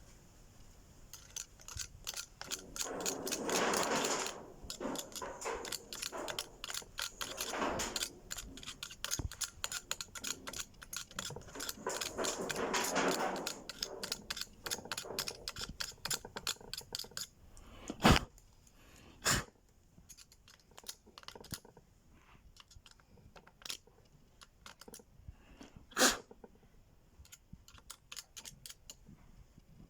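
Hand work on a car's electric power steering column: fast, irregular clicking and rattling of tools and parts for most of the first half, swelling louder twice, then a few sharp separate knocks.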